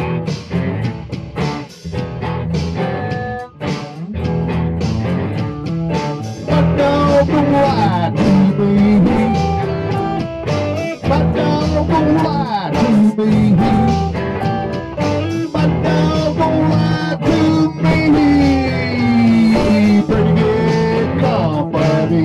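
Blues-rock song intro led by guitar, with notes that bend in pitch; the music grows louder and fuller about six seconds in.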